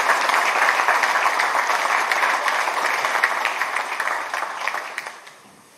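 An audience applauding, a dense steady clatter of many hands that tapers off and dies away near the end.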